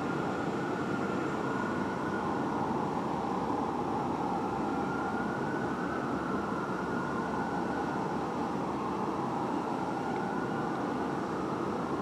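Fire truck siren wailing at a distance, slowly rising and falling, over a steady wash of downtown traffic and rooftop noise.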